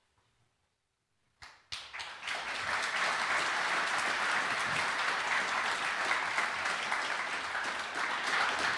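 Near silence, then an audience breaks into applause about a second and a half in, building quickly to a steady level.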